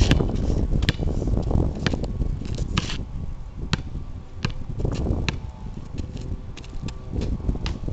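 Basketball bouncing on an asphalt driveway while being dribbled: a string of sharp bounces, about one a second at first and quicker near the end, over wind rumbling on the microphone.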